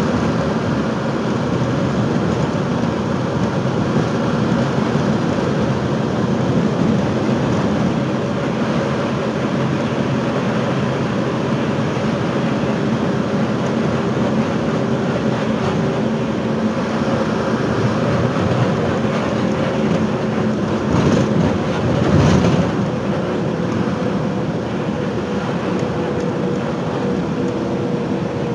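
Bus engine running steadily with road and cabin noise, heard from inside the moving bus. A little over two-thirds of the way through come two brief louder knocks, about a second apart.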